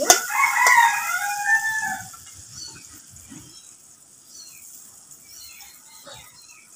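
Oil sizzling in a wok as garlic paste goes in, with a sharp click of the spoon at the start. Over the first two seconds an animal call with gliding pitch sounds, after which only faint sizzling and small chirps remain.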